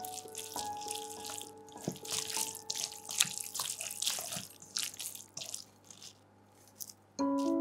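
Instant noodles being stirred and tossed through a thick, wet sauce in a stainless-steel bowl with a spatula, giving irregular sticky, wet mixing sounds over soft piano music. The mixing stops about five seconds in. Near the end there is a short near-quiet before the music comes back louder.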